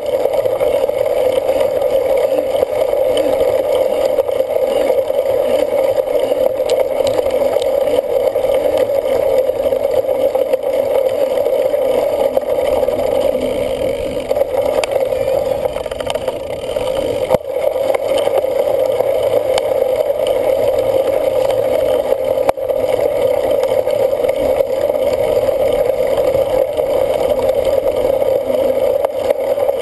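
Steady rushing wind noise on the microphone of a camera riding along on a cyclocross bike. It drops out briefly twice, at about 17 and 22 seconds in.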